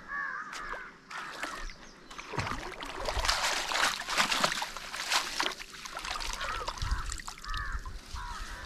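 Rustling and sloshing in water for a few seconds in the middle, with short chirping bird calls near the start and again near the end.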